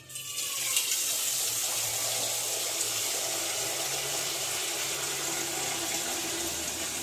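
Water running steadily from a tap, with an even rushing hiss that starts suddenly and cuts off after about seven seconds.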